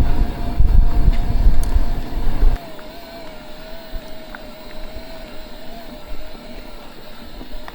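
Riding noise from a mountain bike on a trail: wind buffeting the microphone and a rattling rumble that cut off abruptly about two and a half seconds in. A faint steady whine remains after that.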